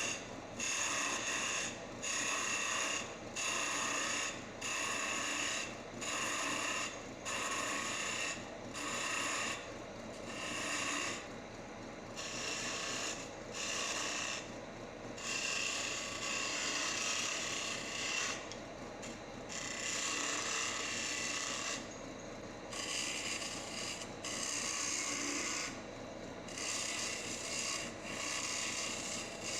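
Wood lathe spinning a wooden stool stretcher while a turning tool cuts it in repeated passes: short scraping cuts about once a second, then a few longer cuts lasting two to three seconds.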